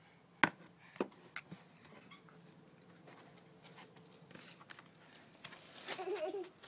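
A small metal garden trowel knocking and scraping against a planter box and its soil: a few sharp clicks, the loudest just under half a second in, then softer ticks. Near the end, a brief wavering voice.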